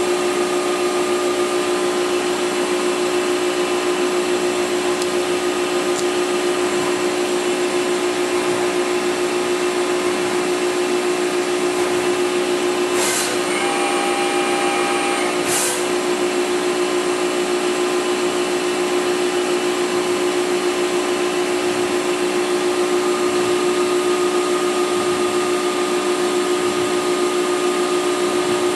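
Mori Seiki NVX5100 CNC vertical machining center running, a steady mechanical whir with a strong held hum. About halfway through, a higher whine of about two and a half seconds sets in and cuts out, opening and closing with a click.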